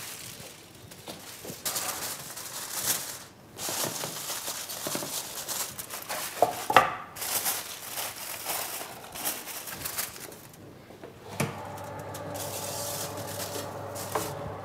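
Aluminium foil crinkling and rustling as it is pressed down over a casserole dish, with a sharp knock about halfway through. Near the end a steady hum with a few held tones sets in.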